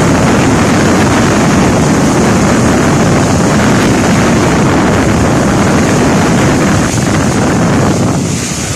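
Steady loud rush of wind and road noise from a vehicle moving fast through a road tunnel, easing slightly as it comes out into the open near the end.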